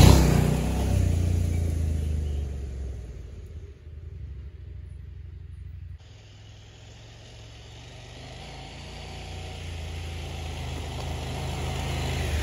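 A motor vehicle engine running with a steady low note, fading away over the first few seconds. It breaks off suddenly about six seconds in, then grows steadily louder again.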